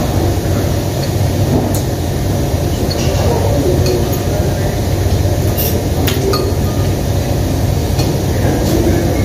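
Restaurant dining-room ambience: a steady low hum, with several sharp clinks of tableware and glasses scattered through it.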